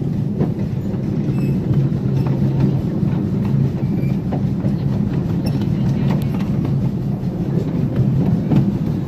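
Train cars rolling on rails behind a live steam locomotive, heard while riding: a steady rumble with scattered clicks and clacks of the wheels over the track.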